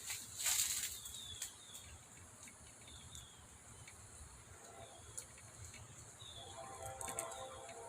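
Evening insect chorus, a steady high buzz, with short falling chirps repeating through it and lower calls in the last second or so. A brief rustle or knock about half a second in is the loudest sound.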